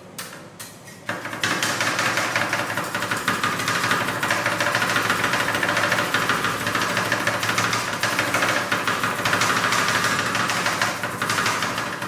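Metal spatulas chopping rapidly on the steel cold plate of a rolled ice cream station, cutting chips into the ice cream base. A few separate strikes, then about a second in a loud, dense clatter that stops suddenly near the end.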